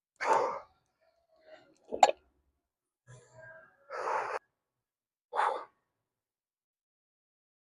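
A man breathing out heavily in sighs, four short breaths spread a second or two apart, with a sharp knock about two seconds in.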